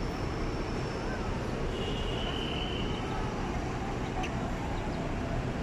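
Steady hum of idling and passing road vehicles at a bus bay, with a brief high-pitched whine about two seconds in.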